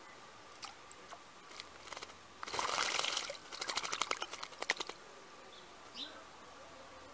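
Female blackbird bathing in a stone basin: a few light drips and dips, then a burst of splashing about two and a half seconds in, followed by a rapid flurry of quick wing-beat splashes lasting about a second and a half.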